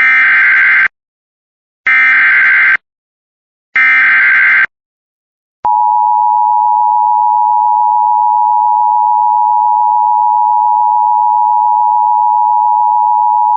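Emergency Alert System SAME header: three short bursts of shrill, warbling digital data tones, each under a second long and about two seconds apart, encoding the alert. Then the steady two-tone EAS attention signal is held for about eight seconds, announcing the severe thunderstorm warning that follows.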